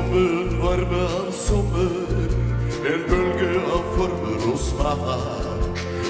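Live dance band playing a sung love song: a singer's voice with vibrato over electric guitar, keyboard and drums keeping a steady beat.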